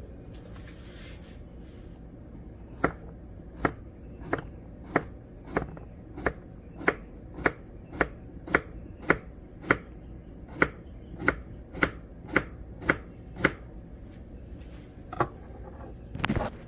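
Kitchen knife chopping food on a cutting board: a steady run of about eighteen chops, a little under two a second, then a pause and one or two more strokes near the end.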